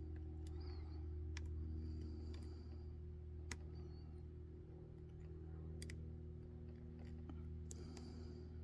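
Faint, sharp metallic clicks of a lock pick and tension wrench working the pin stacks of a Medeco Keymark lock cylinder, several single clicks spaced a second or two apart as pins are lifted and set.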